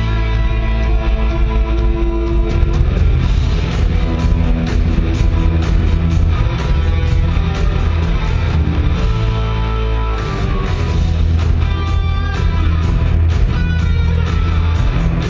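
Live rock band playing, recorded from the audience: keyboard synthesizer and electric guitar over drums and a heavy, steady low end.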